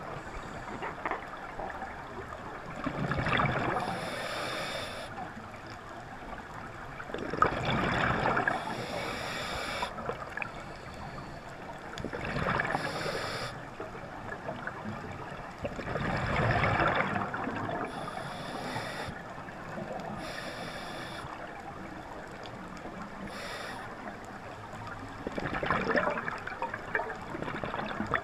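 A scuba diver breathing underwater through a regulator: a hissing inhale, then a burst of bubbling exhaled air, repeating every few seconds.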